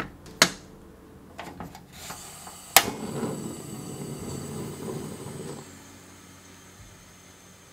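A sweet potato set down in a bamboo steamer with a sharp knock. About three seconds in, a portable butane gas stove's knob clicks as the igniter sparks, and the burner catches with a rush of gas flame for a few seconds before being turned down to a low, quieter flame.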